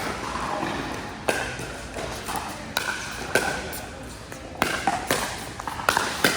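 Pickleball rally: paddles striking the hollow plastic ball with sharp knocks, about seven hits and bounces spaced half a second to a second apart.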